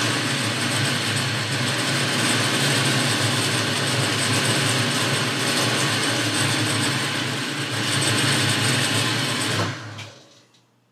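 Boxford lathe running steadily, its motor and gear train turning a small part against the cutting tool. It is switched off near the end and runs down quickly.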